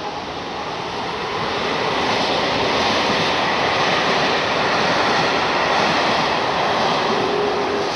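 An electric passenger train passing close beneath: a steady rush of wheels on rails that grows louder over the first few seconds and then holds, with a faint high whine in it.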